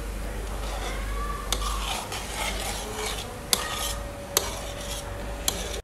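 Metal ladle stirring boiling crab broth in a large metal pan, the broth bubbling steadily, with a few sharp clinks of the ladle against the pan.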